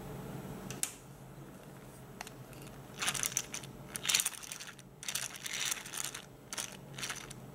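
Small plastic toy fishing reel cranked by hand in several spurts, its plastic gears clicking and rattling. A single sharp click comes just before.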